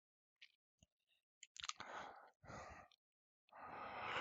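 Near silence broken by a few faint clicks and three soft breaths close to a headset microphone, the last and longest near the end.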